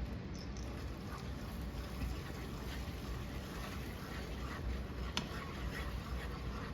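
Food cooking in a pan: a steady hiss with a few faint taps and clicks from handling in the kitchen.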